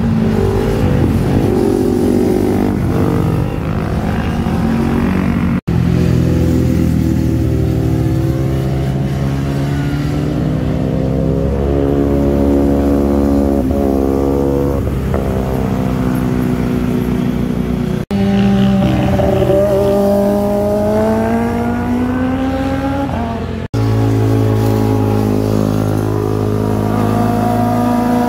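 Sport motorcycle engines revving hard as the bikes ride past at speed, the pitch climbing through the gears and falling away, in several separate passes that break off abruptly between them.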